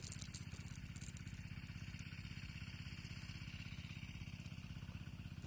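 A small engine running steadily with an even, rapid low pulse, and a few light clicks in the first second.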